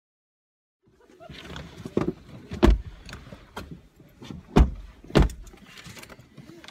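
Handling noise inside a car's cabin, starting about a second in: rustling and shuffling as people settle into their seats and handle papers, broken by four sharp, heavy thumps and knocks.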